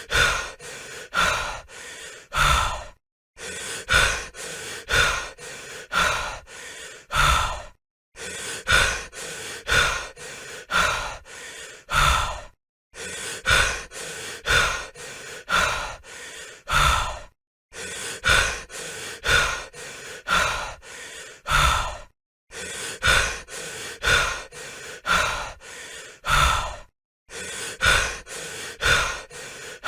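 A person breathing heavily, quick hard breaths about every three-quarters of a second, the louder ones ending in a short fading tail. The same run of about six breaths repeats as a loop, with a brief gap of silence every five seconds or so.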